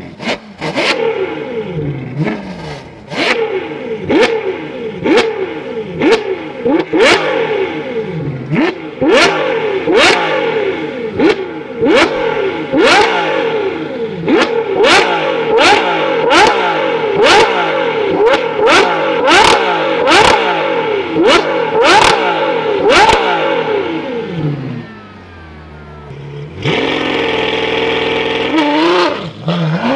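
Ferrari 812's 6.5-litre naturally aspirated V12 through a Novitec exhaust, revved hard again and again while standing still: each quick throttle blip rises sharply and sweeps back down, about one a second. Near the end it drops to a brief idle, then the note rises again.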